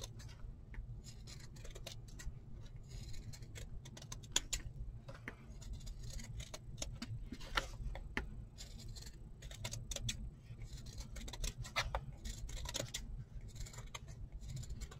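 Scissors cutting through two folded layers of felt, a run of short, irregular snips.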